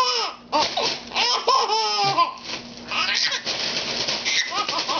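A baby laughing in repeated high-pitched bursts, loudest near the start, around a second in and again near the end. Between the laughs, a plastic grocery bag rustles as it is waved about.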